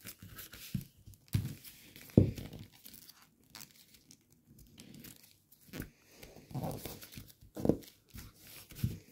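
Gold foil origami paper crinkling and rustling in irregular short crackles as it is creased and flattened by hand, with a few louder crackles.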